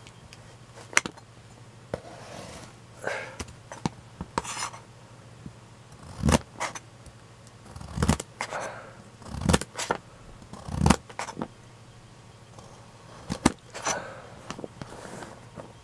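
Kitchen knife slowly cutting a carrot into sticks on a thin plastic cutting mat: irregular sharp knocks of the blade on the mat, a second or more apart, with softer scraping sounds between them.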